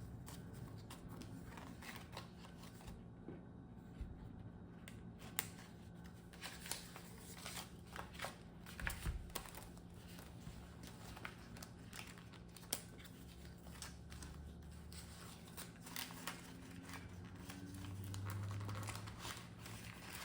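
Paper banknotes and cash envelopes being handled: scattered soft rustles, crinkles and light taps, over a faint steady low hum.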